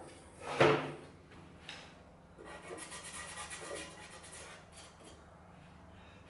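A sharp knock about half a second in, then a couple of seconds of uneven scraping and rubbing as the metal parts of an old stationary engine are handled.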